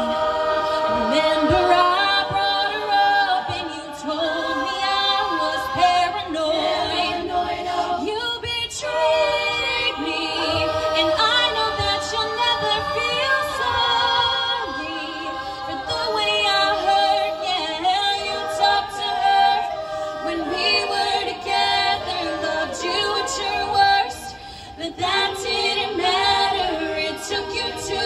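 An all-female a cappella group sings in harmony, with a solo woman's lead voice over the group's backing vocals and no instruments. The sound eases briefly near the end and then swells again.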